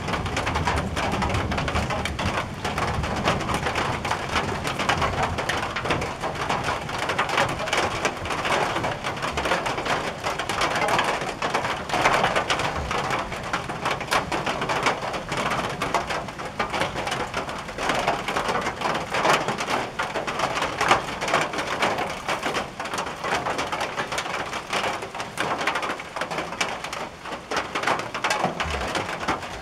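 Heavy rain pattering on a tin roof, a dense, steady clatter of drops. A low rumble of thunder fades out in the first few seconds.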